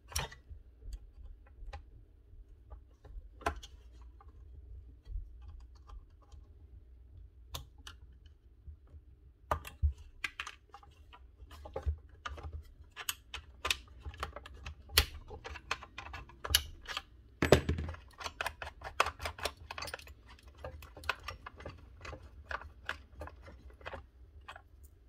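Light, irregular clicks and taps of a screwdriver and fingers on the plastic housing and small parts of a Makita DSS611 circular saw being taken apart. The clicks are sparse at first and come thick and fast from about ten seconds in.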